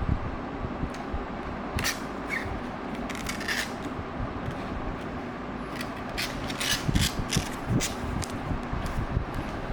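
Robot vacuum running with a steady motor hum, with clusters of sharp clicking and scraping about two seconds in and again about six seconds in.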